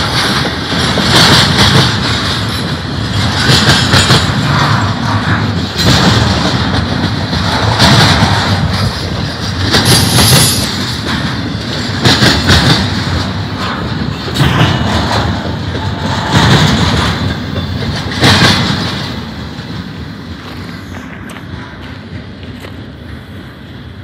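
Double-stack intermodal container train of well cars rolling past at close range, the wheel sets clattering over the track in surges about every two seconds. The last car goes by about three-quarters of the way through, and the sound fades as the train moves away.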